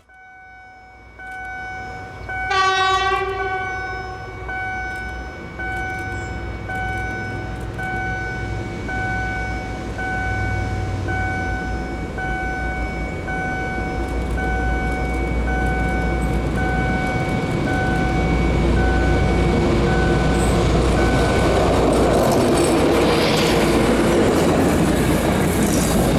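SU45 diesel locomotive hauling a passenger train: a horn blast about two seconds in, then the train's rumble builds until it is loudest near the end as it comes past. Over it, a tone beeps about once a second and stops shortly before the train arrives.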